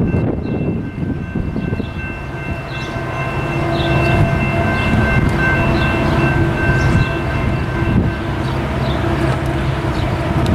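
Approaching diesel freight train, the locomotive engines growing louder after the first couple of seconds, with steady high tones that stop about eight seconds in.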